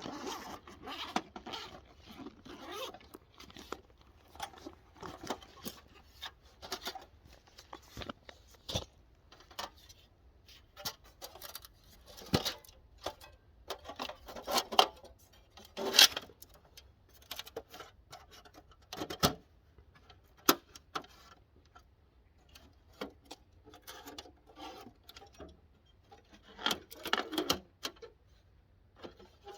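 Irregular clinks, scrapes and rustling of a small portable wood-burning tent stove being set up by hand, with a few sharper knocks about 12 and 16 seconds in.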